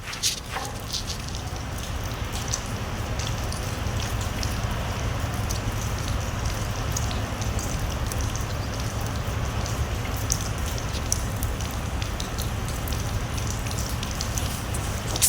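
Steady rainfall with many individual drops pattering and ticking on surfaces, over a low steady rumble.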